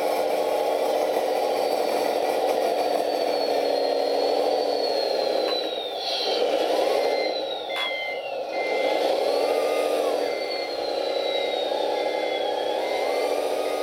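Diesel engine sound of an RC CAT 966G wheel loader, played by a Servonaut SMX sound module, running steadily; the engine note sags and comes back twice as the loader works the snow. A high whine glides down in pitch several times. From about seven seconds in, a reverse beeper sounds in short, evenly spaced beeps as the loader backs up.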